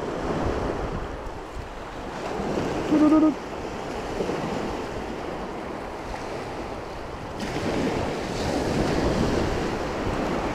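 Surf washing on the beach, with wind buffeting the microphone. A brief, loud pitched sound cuts in about three seconds in, and the hiss grows brighter from about seven seconds.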